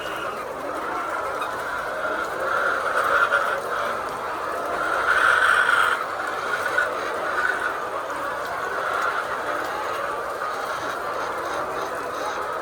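A flock of hens calling together in a continuous, overlapping chorus that swells louder twice.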